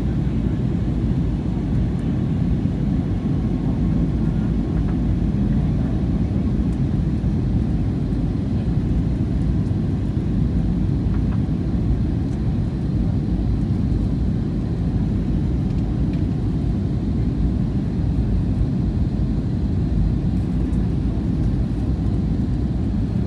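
Steady cabin noise inside an Airbus A320-family jetliner in flight: the even, low rumble of the jet engines and the airflow over the fuselage, heard from a window seat.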